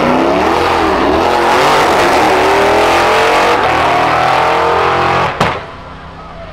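V8 drag cars launching at full throttle. The engine note climbs in pitch, drops briefly about a second in at a gear change, then climbs again, and cuts off abruptly about five seconds in.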